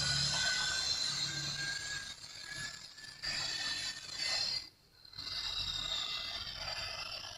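Railway level-crossing warning siren sounding in steady high tones. It breaks off briefly about five seconds in, then resumes.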